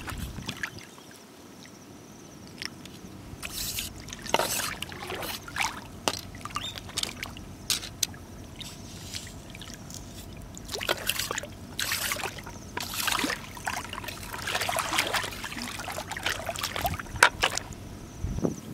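Shallow seawater splashing and trickling in irregular short bursts as hands reach in and lift sea snails out of the seagrass, with water dripping back from the hands.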